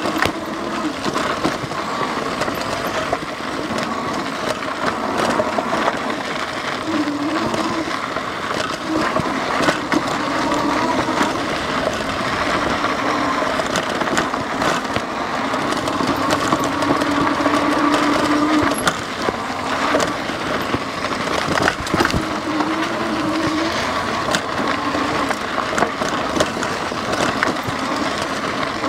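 Lectric XP 3.0 e-bike's rear hub motor whining, its pitch wavering up and down with speed, over fat tyres crunching across rough desert gravel. Scattered clicks and knocks run through it from rocks hitting the fenders and loose gear bouncing on the frame.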